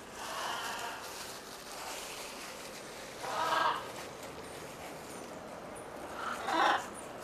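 Blue-and-yellow macaws (Ara ararauna) calling three times: a softer call at the start, then two louder calls about three seconds apart.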